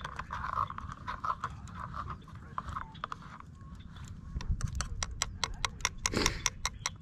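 A spoon stirring thick oatmeal in a stainless steel camp cup, clicking and scraping against the metal. The clicks come quicker and louder in the second half, over a steady low rumble.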